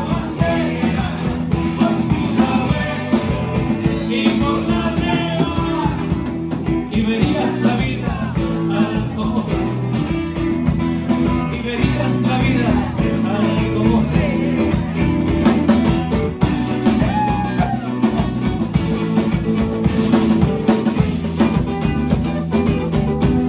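Live rock band playing: a drum kit, electric bass and strummed acoustic guitar, with a man singing lead.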